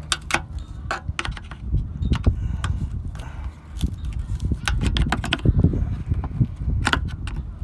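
A screwdriver prying plastic push clips out from under a car's rear bumper cover: irregular clicks and scrapes of plastic and metal, over low handling noise.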